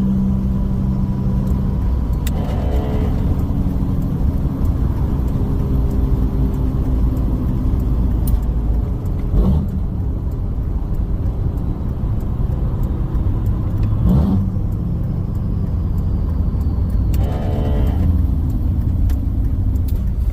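5.9 Cummins inline-six turbo-diesel in a Ram 3500 heard from inside the cab while driving: a steady low engine and road drone. A couple of short thumps come about halfway through.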